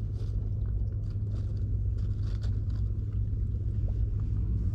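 A steady low rumble with faint light rustles and clicks, as the hooks and spring feeder of a fishing rig are handled.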